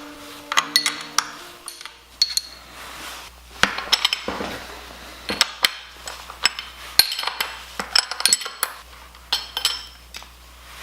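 Metal tools and parts clinking and clanking: a string of sharp, irregular metallic knocks, each with a short high ring.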